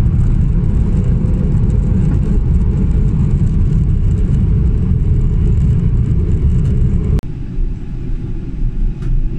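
Steady low rumble of airliner cabin noise in flight. About seven seconds in it cuts off suddenly and gives way to a quieter, more uneven rumble.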